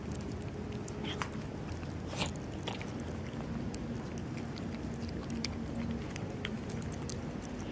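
Cats chewing wet cat food from a plastic tub: scattered quick, sharp clicks and smacks over a steady background hum.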